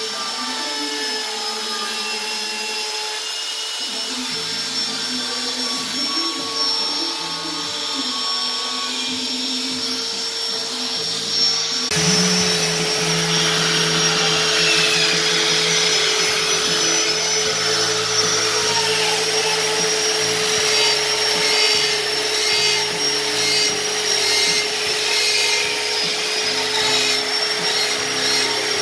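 Handheld electric die grinders running at high speed with a rotary burr cutting into carved wood, making a steady high motor whine over a grinding hiss. The tone shifts suddenly about twelve seconds in, where a second grinder takes over.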